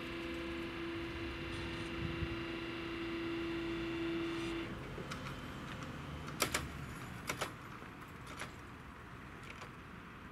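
Electric drive of a level-crossing barrier humming steadily as the boom lowers, stopping abruptly about four and a half seconds in. After that a quieter outdoor background with a few sharp clicks.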